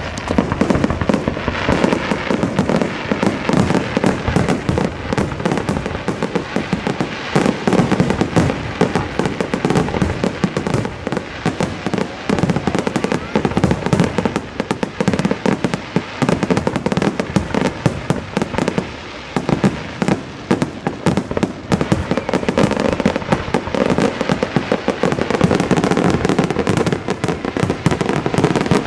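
A dense barrage of aerial fireworks, shells bursting and crackling several times a second with hardly a pause.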